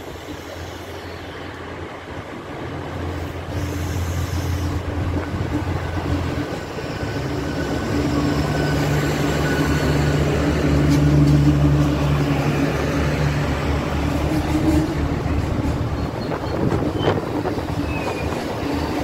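Irish Rail diesel multiple unit pulling into the platform and slowing, its engines running with a steady low drone that grows louder as it draws alongside and shifts higher in pitch about eight seconds in, with a faint high squeal around that time.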